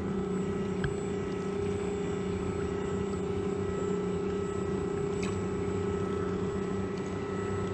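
Small electric thruster motor on a kayak running steadily: a constant hum with a few fixed tones, unchanging in speed.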